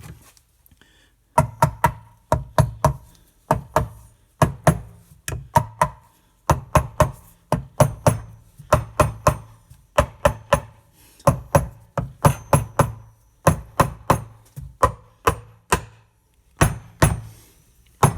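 Cam cover on a 1939 Harley-Davidson ULH flathead engine being tapped down onto its gasket with a hammer. Quick clusters of two to four sharp knocks with a short ring repeat about once a second, starting about a second and a half in.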